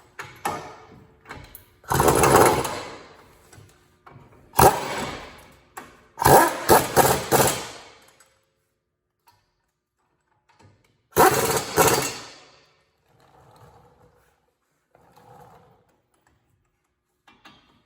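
Impact wrench running in four short bursts, the third broken into quick pulses, tightening the 19mm caliper bolts.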